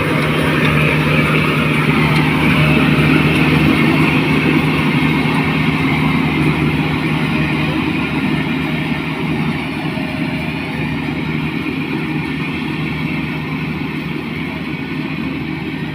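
Rice combine harvester running steadily, its engine hum under the noise of the machinery, growing somewhat quieter over the second half.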